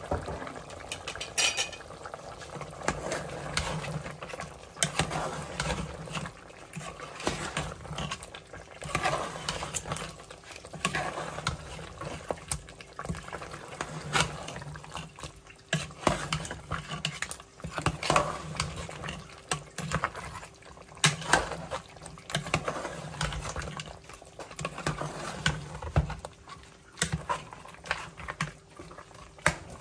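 Metal utensils clinking and scraping against a cooking pot, with irregular knocks.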